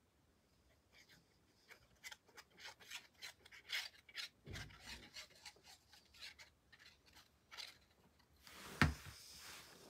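Paper rubbing and scratching as the fine nozzle of a squeeze bottle of liquid glue is drawn along a die-cut paper piece: a string of short scraping strokes, then a single thump near the end.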